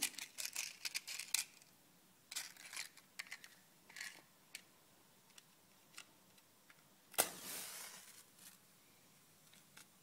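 Scattered small clicks and rustles of handling. Then, about seven seconds in, a wooden match is struck: a sharp scrape and a short hiss as it flares, fading within about a second.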